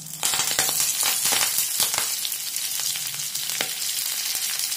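Fresh curry leaves hitting hot oil in a frying pan: a loud sizzle that starts suddenly as they go in and carries on steadily, with sharp pops and crackles scattered through it as the moisture in the leaves spatters.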